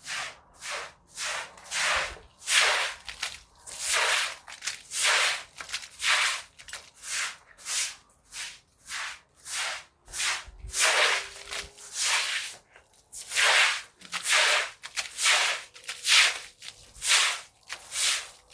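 Rhythmic swishing cleaning strokes rubbed across a surface, a little under two a second, some louder than others.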